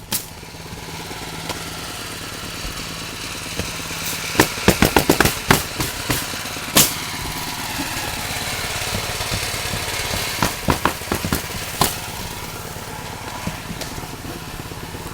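Pneumatic roofing nail guns firing in quick runs of shots as asphalt shingles are nailed down, over a steady engine running throughout, typical of an air compressor.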